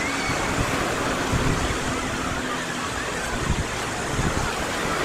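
Small waves of the Sea of Azov washing onto the beach in a steady rush, with a few low gusts of wind on the microphone and a faint steady low hum in the first half.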